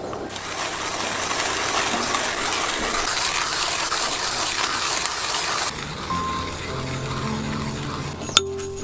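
Manual hand-crank coffee grinder crunching coffee beans: a steady gritty grinding noise that drops to a lower level about six seconds in, with a sharp click near the end.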